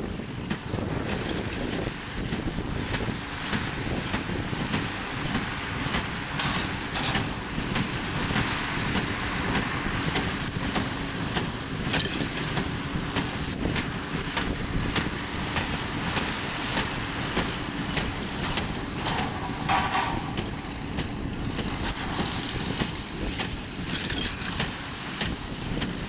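Horse-drawn hay baling rig at work: the forecart engine runs steadily, driving an inline small square baler whose plunger and mechanism keep up a continuous fast clatter. There is a short squeak about three-quarters of the way through.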